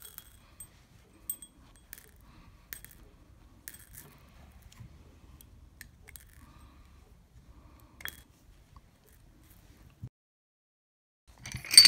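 Sparse faint clicks and taps of small glass beads in a ceramic bowl and of scissors snipping the bead strand's thread. After a brief dead silence near the end, louder clinking of small metal spacer beads in a ceramic dish.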